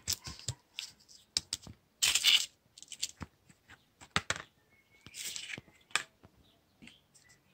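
Round paper sanding discs being handled and laid on a workbench: irregular light clicks and taps of the stiff paper, with two brief louder scuffing rushes about two and five seconds in.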